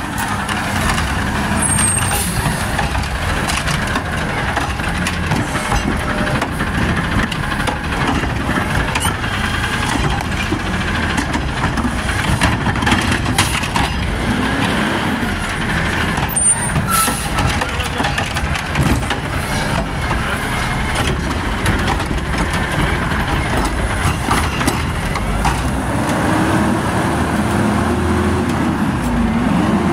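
Automated side-loader garbage truck's engine revving hard to power its hydraulic lift arm: a loud, steady mechanical din, with a couple of rising-then-falling pitch sweeps near the end.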